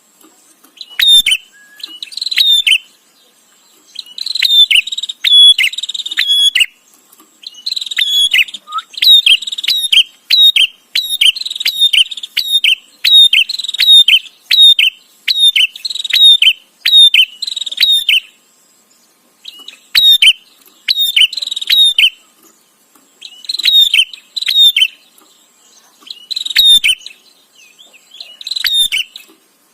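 Prinia (prenjak) calling in rapid chattering bouts of sharp, repeated chips, each bout lasting one to several seconds with short pauses between; the longest run of chatter goes on for about ten seconds before a two-second break.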